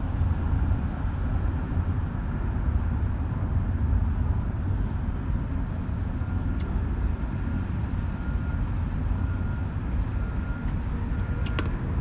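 Steady low rumble of a moving vehicle heard from inside. From about halfway in, a faint high beep repeats every half second or so.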